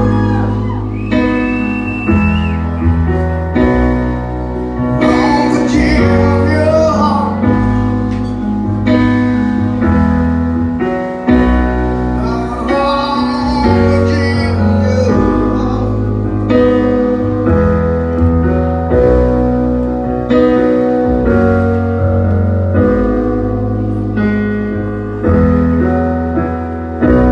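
Live instrumental passage led by a keyboard with a piano sound: chords struck and held, changing every second or two over low bass notes.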